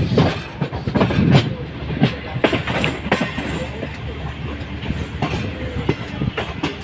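Passenger train running along the track: a steady rumble with irregular knocks and clatter of the wheels over rail joints.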